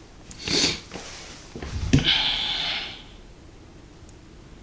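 A man breathing out sharply through the nose, then a low bump and a longer hissing breath out.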